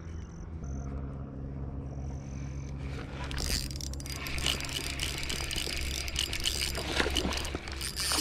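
Spinning reel being cranked fast, a rapid clicking rattle from about three seconds in, as a hooked bass is reeled toward the bank. Under it runs a steady low hum.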